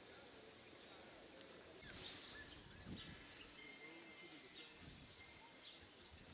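Quiet outdoor ambience, near silence, with faint scattered bird chirps and a few soft low thumps.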